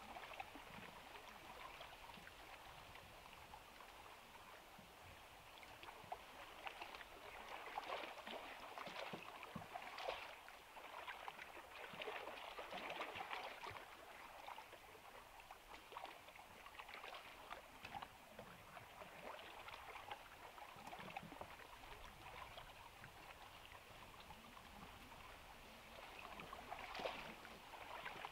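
Wooden spoon stirring beaten egg in a small pan: faint, irregular wet sloshing and scraping, with pieces of cheese and tomato dropped in.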